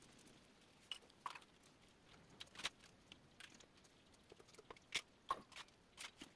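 Faint, short scratches of an HB graphite pencil making strokes on sketchbook paper, scattered irregularly over quiet room tone.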